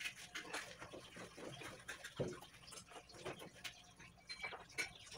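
Faint scattered clicks, knocks and wet rubbing from a gas stove being wiped clean by hand.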